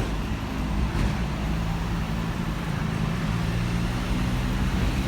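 Electric double-decker tram running, with a low rumble and a motor hum that rises slowly in pitch as the tram picks up speed.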